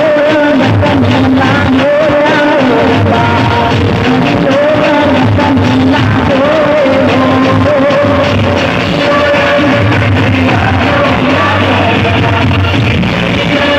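Music with a singing voice, loud and continuous, the melody wavering in pitch over a full instrumental backing.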